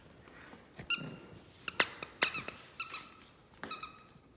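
Squeaker inside a plush lamb dog toy being squeezed, about five short high squeaks in quick bursts spread over the few seconds.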